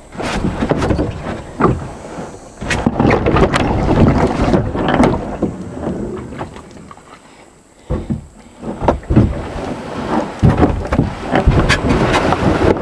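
Knocks, bumps and scrapes on a kayak hull as it is handled at the bank, with wind rumbling on the microphone. The knocks ease off for a moment about seven seconds in.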